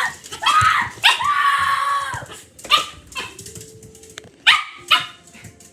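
Dog barking and whining: a short yelp, then a longer drawn-out whine about a second in, followed later by a few sharp knocks.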